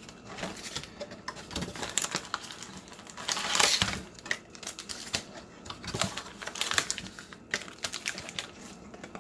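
2020 Prestige football trading cards and pack wrappers being handled: a run of quick clicks and flicks of card stock, with a longer rustle a little past three seconds in.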